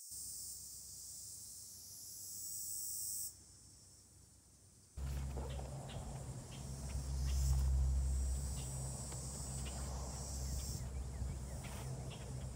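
Insects buzzing, a steady high-pitched hiss, for the first three seconds. About five seconds in, wind starts rumbling on the microphone, with small clicks and rustles over it.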